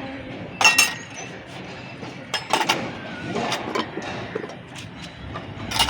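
Kitchen utensils clinking: a spoon tapping against a steel bowl or container, several sharp clinks spread over a few seconds.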